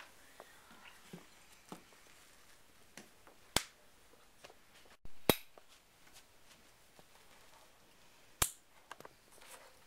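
Faint handling noise as hanging sheets and party decorations are pulled down, broken by three sharp clicks spread through it.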